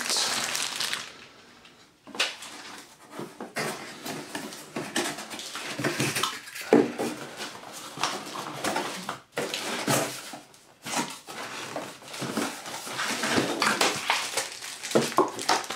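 Plastic bags crinkling and cardboard packaging inserts rustling and scraping, with irregular clicks and knocks of hard plastic vacuum-cleaner parts being handled in the box, and a few short squeaks partway through.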